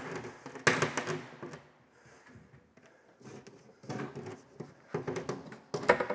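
Plywood sink base cabinet knocking and scraping against the island framing as it is worked down into place over the plumbing pipes, with sharp knocks under a second in and a cluster of knocks near the end.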